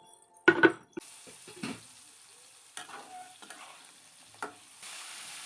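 Potato pieces frying in oil in a kadai, sizzling steadily, with a spatula knocking and scraping against the pan a few times. There is a sharp clatter about half a second in, and the sizzle grows louder near the end.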